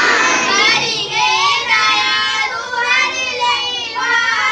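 Schoolchildren singing a prayer together in high voices, holding notes and moving through a melody.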